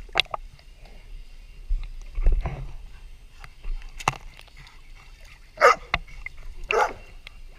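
A few short barks from black Labrador retrievers excited for a thrown ball, the two loudest near the end, over water lapping close to the microphone.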